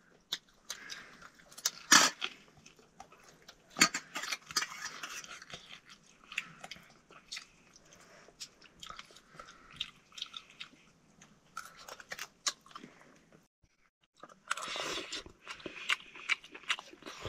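Someone chewing and biting into buffalo meat close to the microphone: irregular wet smacks, clicks and crunches, with a break of about a second late on.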